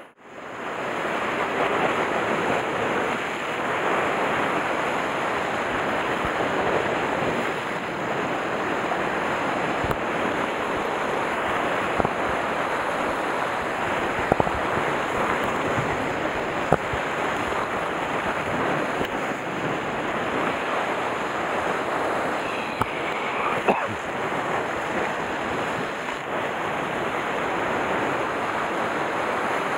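Sea surf breaking and washing over a rocky shoreline, with wind buffeting the microphone. A few short sharp clicks stand out over it.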